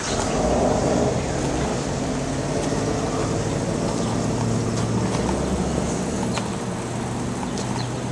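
Car engine and road noise heard from inside a slowly moving car: a steady low drone with a constant hum.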